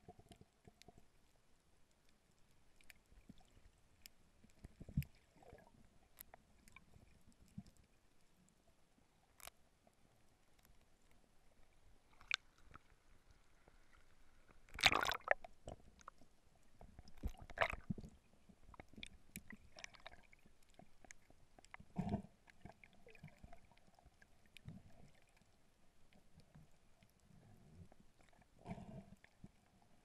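Faint underwater sound picked up by a GoPro in its waterproof housing: scattered sharp clicks and crackles, with a few louder noisy swishes about a second long, the biggest about halfway through.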